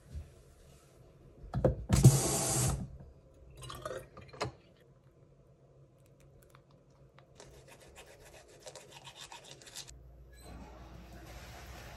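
Close-up personal-care handling sounds of a morning wash-up, with rubbing and scrubbing. A short loud hiss comes about two seconds in, then a few scrapes, then a run of rapid fine scratchy strokes, like a toothbrush scrubbing, after toothpaste is squeezed onto a toothbrush.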